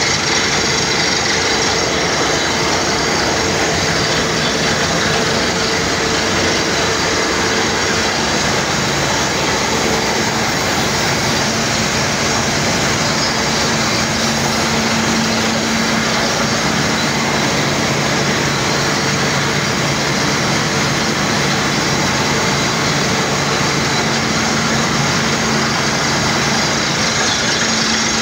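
Air compressor of a borehole drilling rig running steadily: a constant rush of compressed air blowing dust out of the bore over the hum of the compressor's engine.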